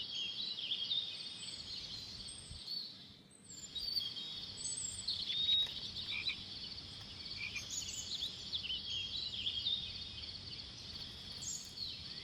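Steady high-pitched chirping and trilling of small animals, with a brief drop-out about three seconds in.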